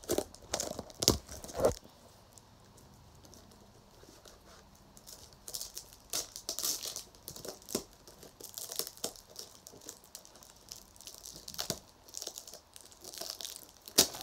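A box of Topps baseball card packs being worked open by hand. The packaging crinkles and tears in repeated bursts, with sharper handling knocks in the first two seconds and one sharp snap near the end.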